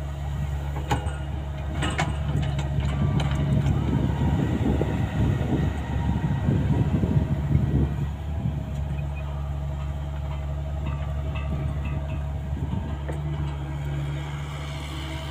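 Caterpillar 305.5E2 mini excavator's diesel engine running steadily while its tracks clatter as it travels, loudest from about three to eight seconds in, with a few sharp metallic knocks near the start.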